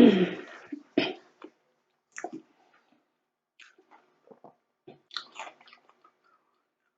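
Close-miked chewing of chili cheese fries: scattered wet clicks and smacks of the mouth, with a louder breathy sound right at the start.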